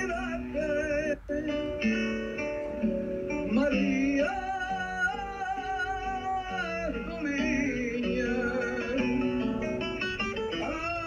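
Music: plucked guitar with a singing voice, held notes wavering in vibrato.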